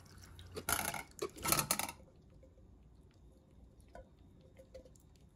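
Canned beets and their juice poured from the can into a metal mesh strainer over a saucepan: two short gushes of splashing liquid in the first two seconds, then a faint tap near four seconds.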